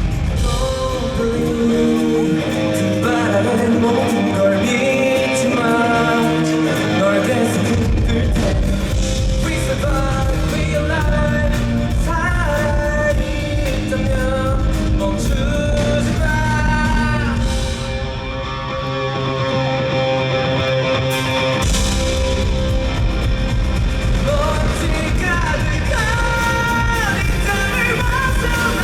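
Live rock band playing a song, with a singing voice and electric guitar over the band. The bass and kick drum drop out for several seconds near the start and again past the middle, then come back in full.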